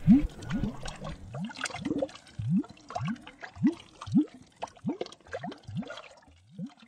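Water bubbling in a string of short rising bloops, about two a second, with small clicks between them, getting fainter near the end.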